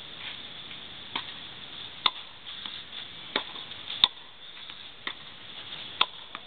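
Tennis balls being struck with rackets and bounced on the court: a series of sharp pops at irregular intervals about a second apart, the loudest about two, four and six seconds in.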